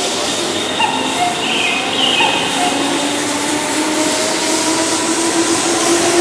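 Keihan Electric Railway commuter train pulling out of a station, its traction motors giving a whine that slowly rises in pitch as it speeds up, over the steady running noise of the cars.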